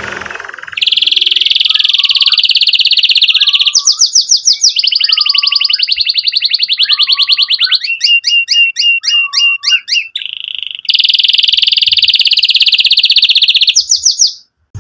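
Domestic canary singing loudly in long, very rapid trills, each held for a few seconds. In the middle of the song the trills give way to a run of sharp chipping notes that slur downward, and then a long trill comes back.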